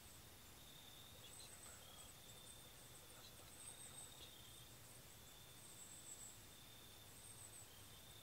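Near silence in woodland, with a faint, steady high-pitched insect trill and a fainter, higher buzz that comes and goes.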